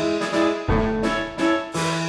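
Background music: a light tune with evenly spaced notes, about three a second.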